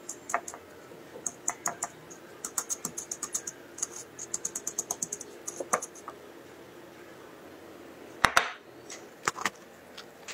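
Dry crushed Oreo crumbs crackling in quick, light clicks as a chocolate sandwich cookie is pressed and rolled in them on a plate. A single sharper click comes about eight seconds in.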